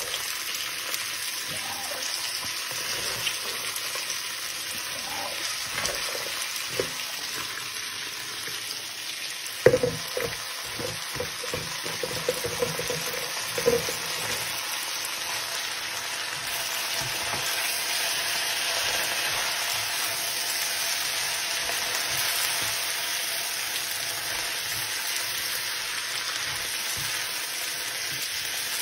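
Water spinach and bean sprouts sizzling steadily as they stir-fry in a hot nonstick wok. About ten seconds in, a few seconds of knocks as the spatula strikes the pan.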